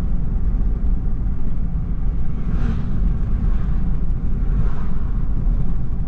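Steady low road and engine noise of a moving car, heard from inside the cabin, with two faint swells of higher hiss partway through.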